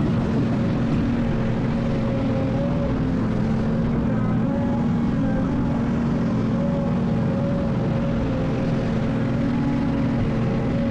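Excavator's diesel engine running at a steady speed, a continuous drone whose pitch wavers slightly.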